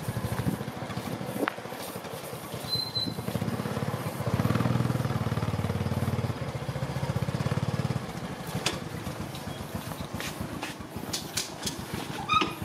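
Small motorbike engine running at low speed, a little louder about four seconds in, then stopping abruptly about eight seconds in. After that, only a few light knocks and clicks.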